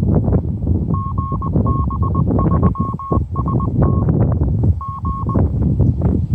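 Morse code from a radio's speaker: a steady beep keyed in short and long elements, starting about a second in and ending after about five seconds. Wind buffets the microphone throughout.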